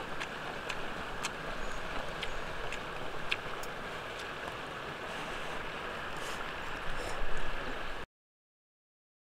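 Wood fire crackling in a portable camping fire pit: a steady hiss with scattered sharp pops, stopping abruptly about eight seconds in.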